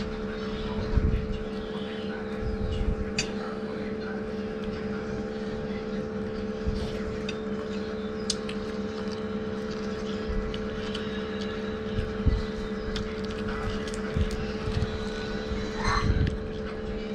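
A steady mechanical hum of constant pitch, like a motor running, with small clicks and taps from tearing and handling food over it.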